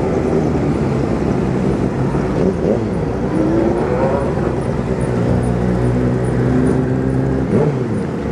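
Kawasaki Z750's inline-four engine running at low revs while riding, with the engines of several other motorcycles close ahead; the revs rise briefly about three seconds in.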